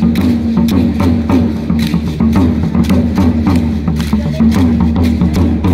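Dance-troupe street music: a large drum beaten with sharp wooden clacks in a steady rhythm, over a low held melody that steps in pitch.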